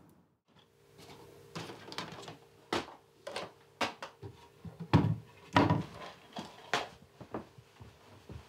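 Someone rummaging through a low wooden TV cabinet: a string of knocks and clatters as objects are shifted and pulled out, loudest about halfway through.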